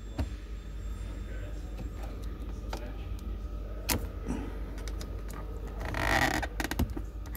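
A thin screwdriver clicking and scraping against the gear lever's plastic and its metal retaining clip, with a short scraping spell about six seconds in and a quick run of small clicks near the end, over a steady low hum.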